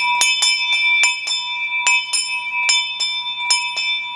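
Heavy cast brass school bell being rung, its clapper striking about three or four times a second in quick runs with a short pause, each strike sustaining a deep ring.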